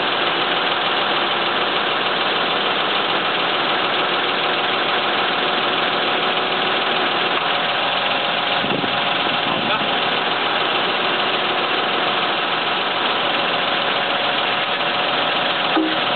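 A truck's diesel engine runs steadily, driving the hydraulics of its truck-mounted loader crane as the crane lifts and swings a heavy machine tool. There is a light knock near the end.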